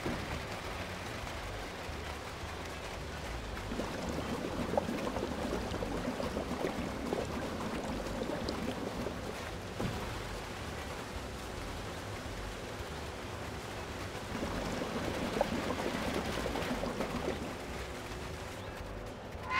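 Cement mixer pouring wet concrete in two spells, one of about five seconds and one of about three, over a low steady hum.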